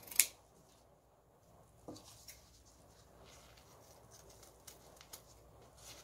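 Scissors cutting through felt: a sharp click about a quarter second in, then a few faint snips and scratches.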